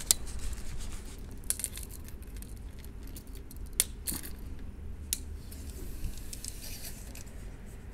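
Metal tape measure being handled and extended for a measurement: scattered sharp clicks and light rattling of the blade, the loudest click a little under four seconds in.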